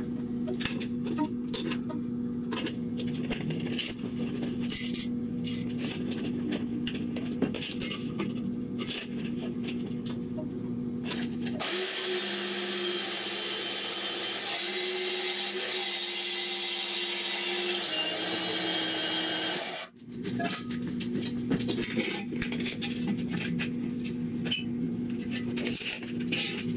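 Portable band saw running and cutting through steel square tubing: a steady motor hum with the blade rasping through the metal and many small clicks. For about eight seconds in the middle the sound shifts to a brighter hiss with a different tone.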